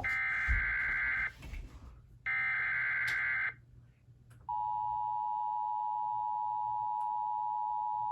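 Emergency Alert System SAME header for a relayed severe thunderstorm warning: two harsh warbling digital data bursts of about a second each, a second apart. About four and a half seconds in, the steady two-tone EAS attention signal starts.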